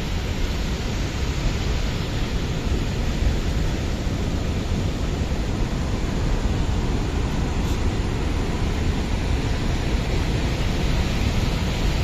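Athirappilly waterfall in heavy monsoon flow: a steady, even rush of falling water that does not let up.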